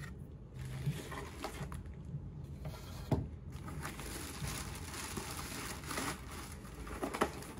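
Plastic packaging crinkling and a cardboard box being handled, with scattered light clicks and one sharp knock about three seconds in.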